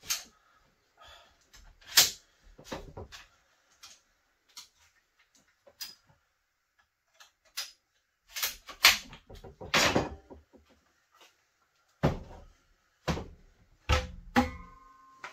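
Wooden trim boards and tools being knocked and set down on a workbench: scattered knocks and thuds, loudest about two seconds in and in a cluster around nine to ten seconds, with a short ringing clink near the end.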